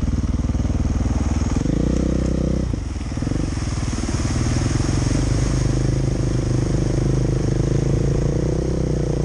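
Dirt bike engine running under throttle through deep water, with the hiss of spray thrown up by the wheels. The engine revs up a couple of seconds in, drops off about a second later, then pulls steadily.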